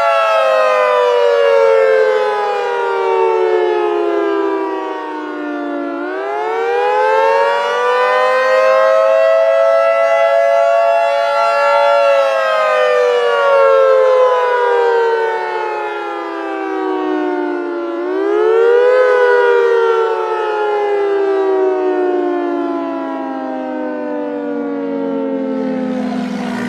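Emergency-alert siren wailing in long cycles: the pitch falls slowly, then sweeps back up quickly twice, about twelve seconds apart, before falling again each time.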